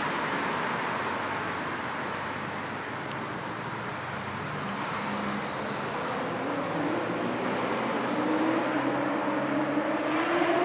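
Road traffic on a city street: a steady hiss of cars passing. In the second half, one vehicle's engine note rises slowly in pitch and grows louder.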